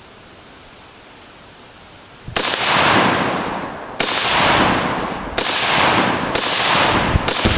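Five gunshots fired at a Tannerite target, starting about two seconds in and coming a second or so apart. Each shot has a long echoing tail.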